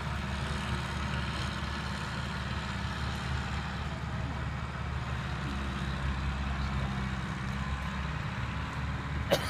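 Lifeboat launch tractor's engine running steadily at a low drone as it tows the inshore lifeboat on its trailer across wet sand and shallow water. A single sharp click near the end.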